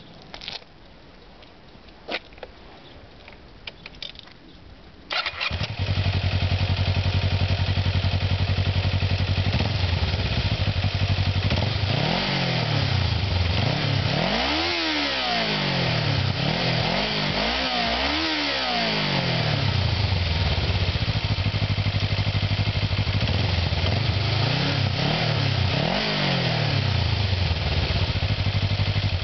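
Kawasaki ER-5's parallel-twin engine on its stock exhaust: after a few faint clicks it starts about five seconds in and settles into a steady idle. It is revved several times, with two bigger blips in the middle, and stops at the end.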